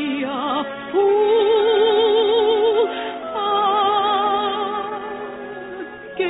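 Operatic soprano singing an operetta song with a studio orchestra. She holds two long notes with wide vibrato, and the second softens before a new phrase starts near the end.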